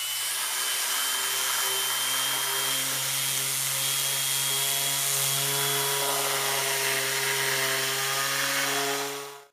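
Electric palm (detail) sander running steadily, rough-sanding old, rough wood with 80-grit paper: a low motor hum with a thin high whine over the scratch of the paper.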